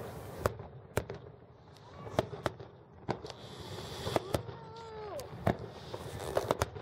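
Aerial fireworks shells going off: a string of sharp, irregular bangs, about a dozen in all.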